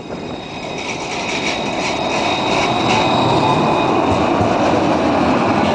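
Luas tram (Alstom Citadis) passing close by: the rumble of steel wheels on rail with a high steady whine above it, growing louder over the first few seconds as the tram draws level, then holding steady.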